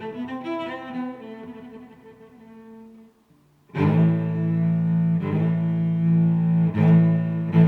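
Background music of bowed string instruments: a phrase of notes fades out about three seconds in, then after a short pause a new section starts with loud, sustained low notes that are re-bowed every second or so.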